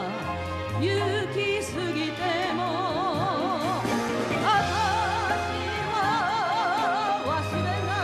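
A woman singing a Japanese chanson with wide vibrato, to instrumental accompaniment with a steady bass line.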